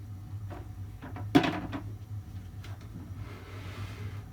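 Handling of a hose and its fitting at the heating-system tank: one sharp knock about a second and a half in, a few small clicks, then a faint hiss near the end.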